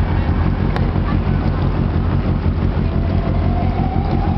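A sailboat's auxiliary engine running steadily, a deep even throb.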